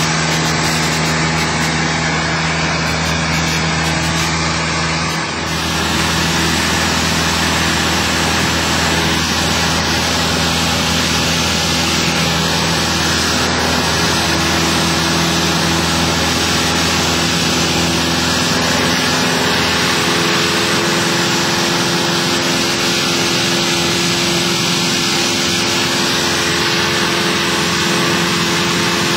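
Cessna 172's single piston engine and propeller droning steadily in flight, heard from inside the cabin under a dense rush of air noise. Its note shifts slightly about five seconds in.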